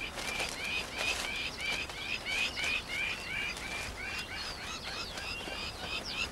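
A bird chirping in a fast, even series, about three short high chirps a second, with no break.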